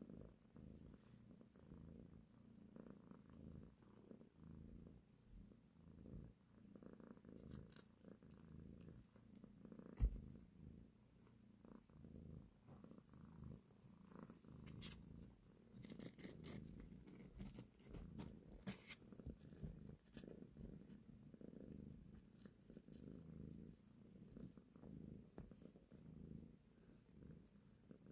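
Soft, steady cat purring from a mother cat nursing her kittens. A dull thump comes about ten seconds in, and a few faint clicks follow later.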